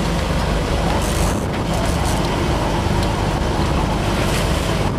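Motorboat engine running steadily at trolling speed, a constant low hum under a hiss of wind and water.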